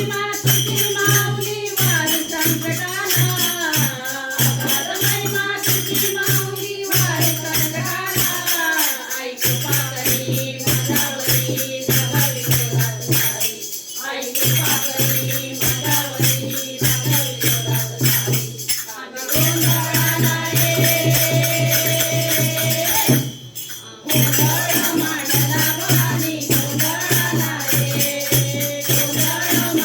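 Gondhal devotional song to the goddess Bhavani: a voice singing a wavering melody over jingling, tambourine-like percussion keeping a steady beat and a low steady drone. The music stops briefly a few times, for about a second each.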